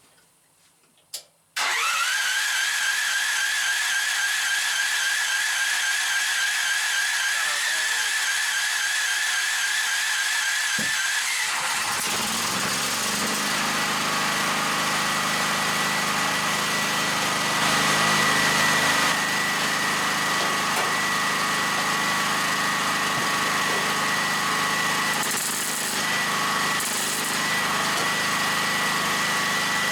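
Portable generator's engine starting about a second and a half in, then running steadily; its note changes about halfway through, and a deeper, steadier running sound carries on after that.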